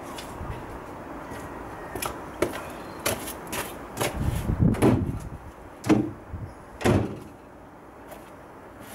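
A Toyota pickup's metal tailgate being unlatched and lowered, giving a series of clunks and knocks, loudest about halfway through.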